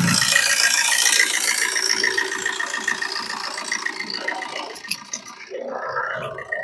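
2012 Fiat Punto's 1.3-litre Multijet four-cylinder diesel engine idling, heard close up from the open engine bay. The seller presents it as the sound of an engine in good condition. It gets noticeably quieter about five seconds in.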